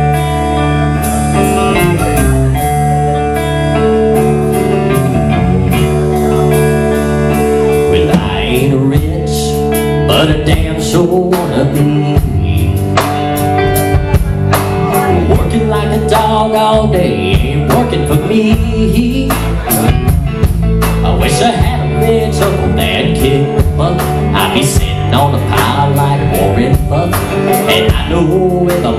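Live amplified band playing a blues-country rock song on electric guitar, electric bass and drum kit. The drums come in harder about eight seconds in.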